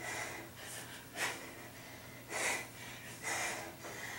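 A woman breathing hard during kettlebell swings, with a short forceful exhale about once a second in time with the swings.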